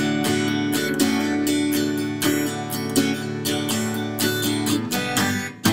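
Acoustic guitar strummed in a steady rhythm, about four strums a second over ringing chords, with a brief dip in loudness just before a sharp strum at the end.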